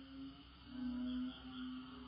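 Frogs calling in a low, drawn-out drone, three long notes in a row, over a steady high-pitched insect chorus of crickets and cicadas.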